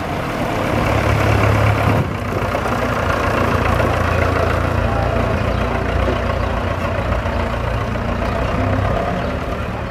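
Vintage diesel tractor engines running close by, a steady low drone as the tractors pull slowly away. The sound drops abruptly about two seconds in, then carries on steady.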